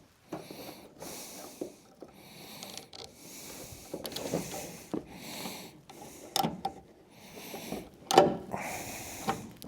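Hands feeding a plastic air-suspension airline through the truck's chassis: repeated rustling and scraping about once a second, with a few sharp clicks and knocks.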